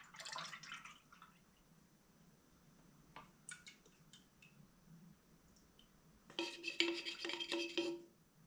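A wooden stir stick scraping thick polyurethane out of a tipped metal quart can into a gallon paint can, with liquid dripping. Near the end a quick run of scrapes sets the metal can ringing.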